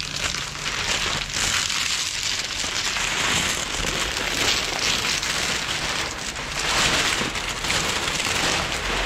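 Clear plastic protective layer being peeled off vinyl wrap film and bunched up by hand, a continuous crinkling and crackling.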